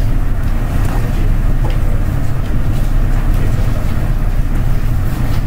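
Steady low rumbling hum with no breaks or changes.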